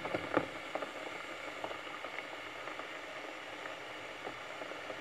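Single-serve coffee machine brewing, with coffee pouring in a thin stream into a mug: a steady hiss with a few sharp crackles in the first half-second.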